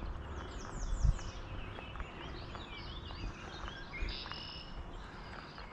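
Wild songbirds singing: a quick run of falling high notes, then scattered chirps and a short buzzy trill about four seconds in. Low wind rumble on the microphone and a couple of soft thumps lie underneath.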